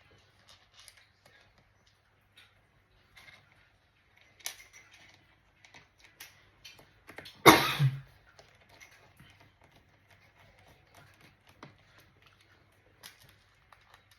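Small clicks and taps of laptop parts being handled during a RAM upgrade, with one louder clatter about halfway through.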